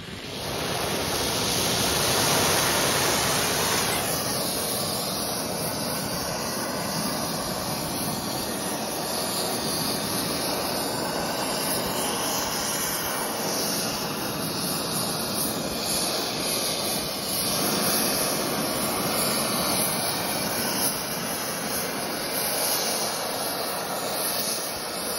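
Gas torch flame burning with a steady rushing hiss as it heats a steel locomotive tire ring to expand it for shrink-fitting. The sound turns less hissy and duller about four seconds in, as the long flame is turned down and brought onto the ring.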